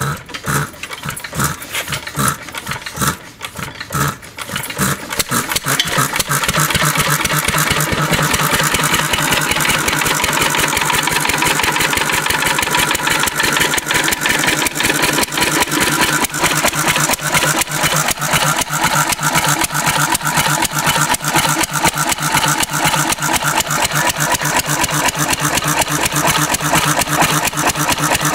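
Cushman Cub R20 throttle-governed stationary engine starting: a few uneven firing strokes as it catches, then about five seconds in it settles into a steady, fast, even run.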